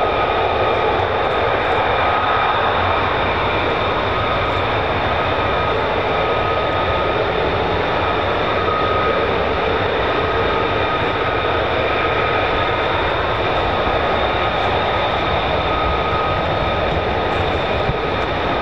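An F-35 fighter's jet engine idling while the jet taxis slowly, a steady rushing noise with a high turbine whine made of several held tones.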